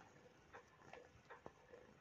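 Near silence with a few faint, soft ticks, a cat's paws and claws kneading on a cotton T-shirt.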